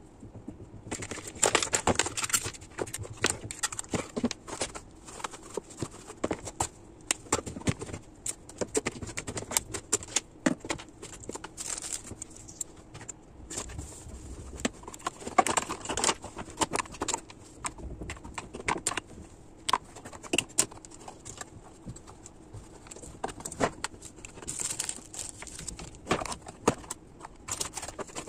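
Small items being handled, sorted and set down on a desk: irregular clicks, taps, clinks and knocks of plastic and metal objects, with some rustling.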